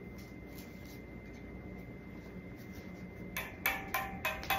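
Faint room noise with a thin steady high whine, then near the end a quick run of four or five light clicks and taps as craft pieces are handled on a table.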